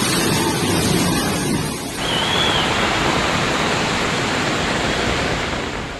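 Loud, steady rush of floodwater, an even roar of noise, changing abruptly about two seconds in as one stretch of water gives way to another; a brief high whistle-like tone sounds just after the change.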